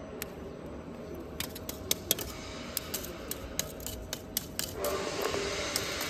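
Pieces of plywood charcoal clinking and clicking against each other as they are handled and rummaged by hand, an irregular run of light sharp taps that becomes a busier rustle near the end.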